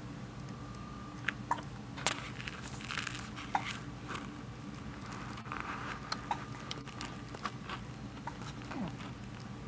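Hiccups: short sudden 'hic' sounds coming at irregular intervals, with soft rustling between them over a steady low room hum.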